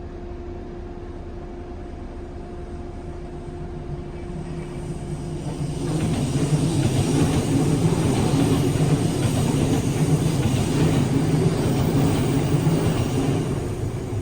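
Inside a 415 series electric train: a steady equipment hum, then from about six seconds in a louder rumble of train wheels on the rails that lasts about eight seconds and fades back to the hum near the end.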